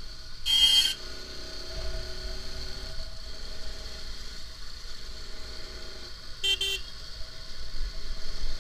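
Motorcycle engine running under way with wind noise, broken by vehicle horn honks: one loud honk about half a second in and two quick short toots about six and a half seconds in.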